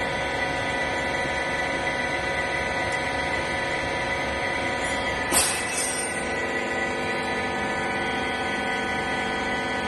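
Wiper rag baling machine running with a steady whine, with one short, loud burst of noise about five seconds in.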